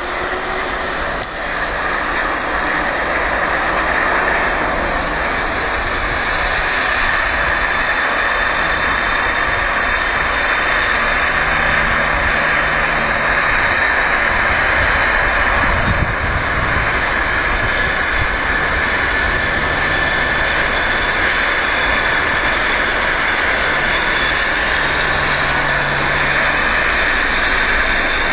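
Ambulance helicopter's turbine running steadily, a continuous high whine over a rushing noise.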